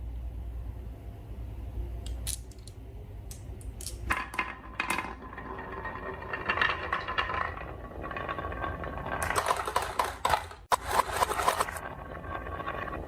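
Marbles rolling and clattering down a wooden marble run: a few separate clicks at first, then from about four seconds in a dense rattle of many small knocks that breaks off briefly and starts again near the end.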